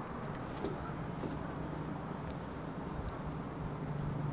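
Steady outdoor background: a constant low hum with faint, scattered high ticks over it.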